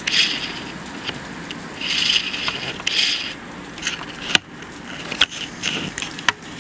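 Hurricane-force rain and wind: surges of hissing noise in the first few seconds, then several sharp clicks about four to six seconds in.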